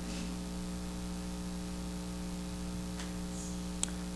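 Steady electrical mains hum, a constant low buzz of several even tones, with one small click near the end.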